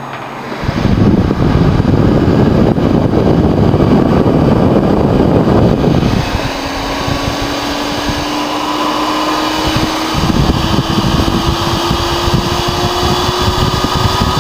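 Dell Optiplex GX280 desktop's fans spinning up about a second in and running at full speed with a loud, jet-like rush, with a whine that slowly rises in pitch through the second half. The owner puts the fault down to the motherboard.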